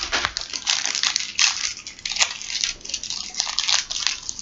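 Plastic wrappers of hard lemon candies crinkling as they are handled and unwrapped, an irregular run of crackles.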